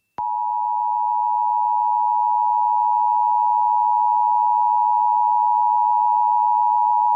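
NOAA Weather Radio warning alarm tone: one steady, unbroken pure tone (1050 Hz) that starts with a click about a quarter second in. It is the alarm that switches on tone-alert weather radio receivers, here sounded as a routine test.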